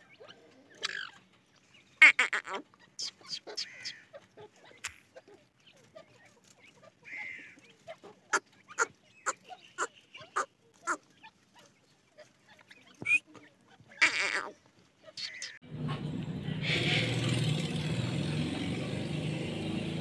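Grey francolin adults and chicks giving soft peeps and short, sharp clucking calls, scattered and irregular, with a run of quick clucks about two a second partway through. Near the end a steady hissing background starts abruptly.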